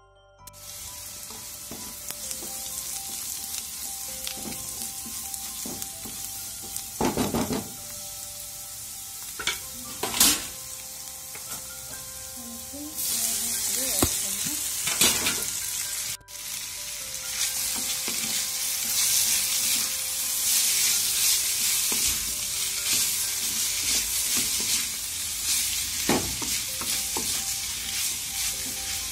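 Chopped onions and vegetables sizzling in a hot metal kadai while stirred with a wooden spatula, with a few scrapes and knocks of the spatula against the pan. About halfway through the sizzling gets louder, as the boiled wheat-flour noodles go into the pan and are tossed.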